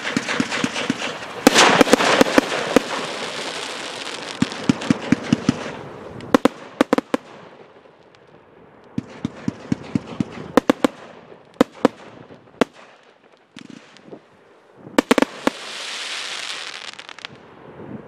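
A 500-gram consumer firework cake (No Name 'Come and Get It', 24 shots) firing its comets: sharp launch and burst cracks over a dense hiss and crackle, in several volleys with short gaps between them, and a stretch of hissing near the end.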